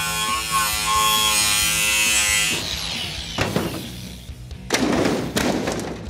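Cordless angle grinder cutting through a riveted metal boat hull with a steady high whine, which stops about two and a half seconds in. A metal clatter and a larger crash follow, as the two halves of the boat come apart.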